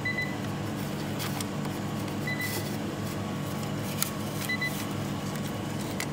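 A steady low machine hum with a short, high electronic beep repeating about every two seconds, and a few light clicks and rustles of handling.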